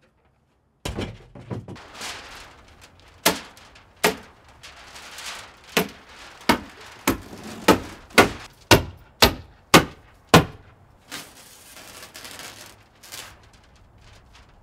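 A run of about a dozen sharp hammer strikes, roughly two a second, fastening Tyvek housewrap to the wall sheathing, with rustling noise between and after them.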